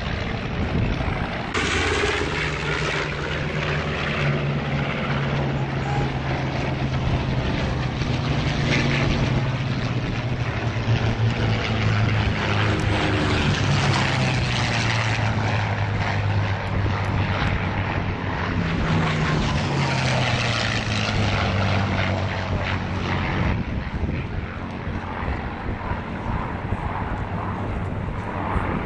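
Piston engines of WWII propeller warplanes droning past in a fly-by. Their pitch falls as each goes by, once through the middle and again about two-thirds of the way through.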